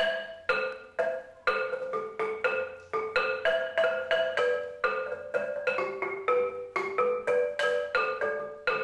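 Background music: a quick melody of struck, pitched notes that each ring briefly and fade, about two to four notes a second.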